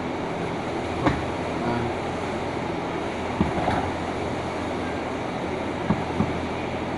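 Steady machine hum and hiss, with a few short, light knocks: one about a second in, one in the middle and two close together near the end.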